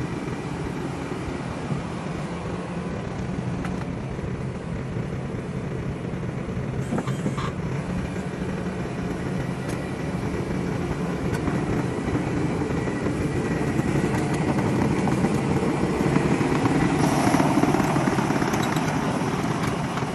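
Diesel engine of a Takeuchi tracked excavator running steadily, with a few faint clanks; it grows louder over the last few seconds.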